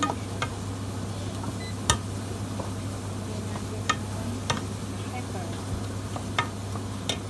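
Sharp clinks of a utensil against a cooking pot, about six scattered through, over a steady low hum.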